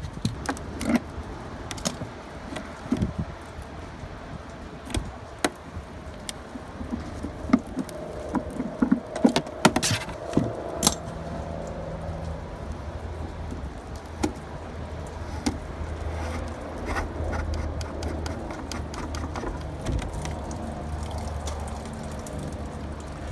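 Pliers clicking and scraping against the plastic low point drain caps on an RV's water lines as the caps are worked loose, a string of small knocks and clinks. About halfway through the knocking gives way to a steady low hum.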